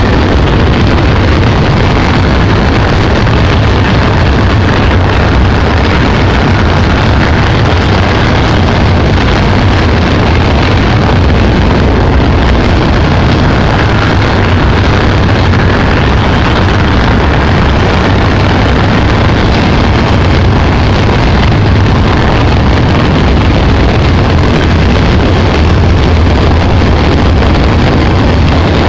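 Train running steadily over a steel truss railway bridge, heard from beside the carriage: a loud, unbroken rumble of wheels and running gear with heavy wind on the microphone.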